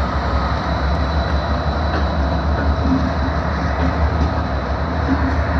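Union Pacific freight train's diesel-electric locomotives rolling past slowly as the train pulls out, with engines running in a steady, unbroken low rumble and wheel and rail noise beneath it.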